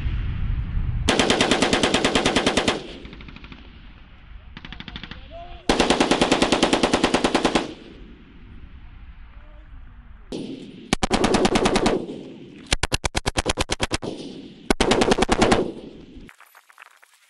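M249 SAW 5.56 mm light machine gun firing in bursts of one to two seconds, five loud bursts with short gaps and one fainter short burst among them. The firing cuts off suddenly near the end.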